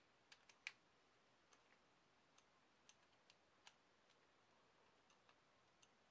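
Faint, irregular ticks and clicks of a screwdriver turning a small screw into a plastic RC transfer case housing, the sharpest about half a second in.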